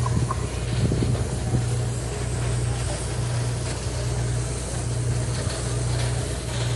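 Wind buffeting the microphone over a steady low mechanical hum.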